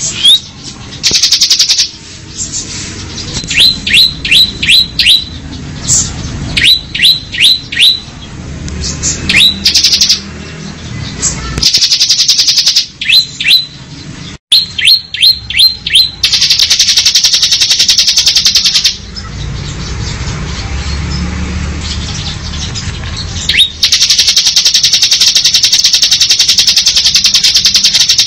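Bar-winged prinia (ciblek) singing: runs of four or five sharp, quick falling notes alternate with long, rapid buzzing trills, the 'ngebren' drill-like song. The two longest trills come about halfway through and over the last few seconds.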